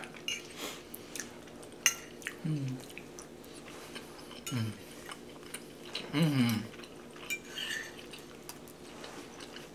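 Metal forks clinking and scraping on ceramic dinner plates as food is picked up and eaten. Three short falling "mm" hums of enjoyment come about two and a half, four and a half and six seconds in.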